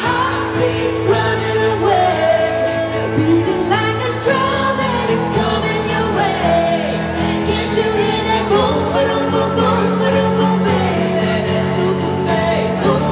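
A woman singing a pop song live with keyboard accompaniment, amplified through a concert PA and heard from the audience.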